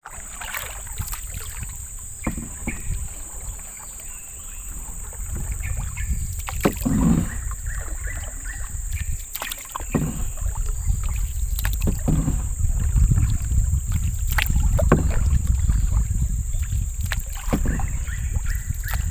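A small boat travelling along a river: low wind rumble on the microphone and water noise, with scattered short knocks and a steady high-pitched hiss.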